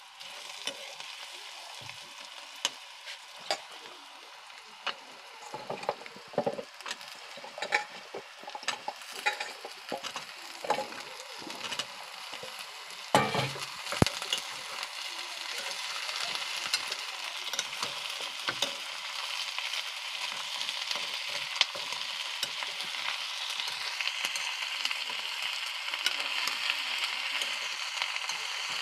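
Chopped onion sizzling in oil in a steel kadai, stirred with a steel ladle that scrapes and knocks against the pan. About halfway through, chunks of banana stem go in and the frying gets louder as the pan is stir-fried.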